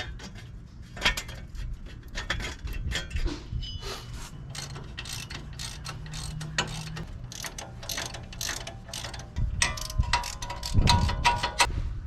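Hand ratchet wrench clicking in quick runs while wheel-hub bolts are tightened, with metallic clinks; the ratcheting grows louder with a ringing metal tone near the end.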